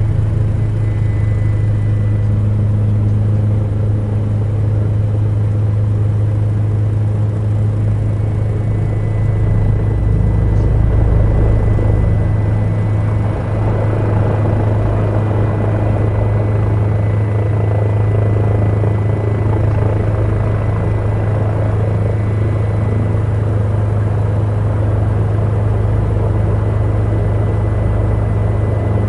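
Helicopter in flight heard from inside the cabin: a steady deep drone of engine and rotor with a faint high whine, swelling a little partway through.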